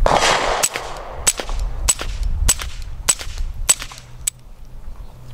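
Suppressed Smith & Wesson Model 2206 .22 LR pistol fired in a steady string of about eight shots, each a sharp crack a little over half a second apart. The first shot is followed by a longer noisy burst, and the firing stops after about four seconds.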